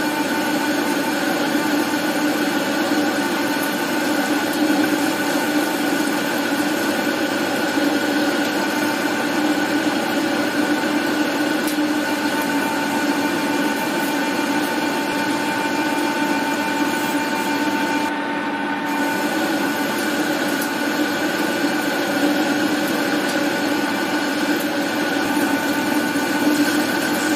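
Manual metal lathe running steadily while turning down 50 mm round bar stock, a continuous machine hum with a few held tones. One of the higher tones fades out a little over halfway through.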